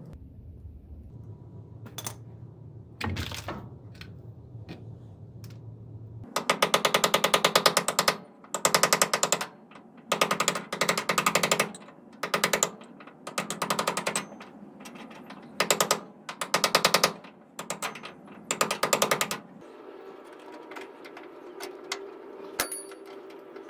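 Hand ratchet wrench clicking in about eight quick bursts of rapid ticks as it is swung back and forth on a fastener, after a few light knocks.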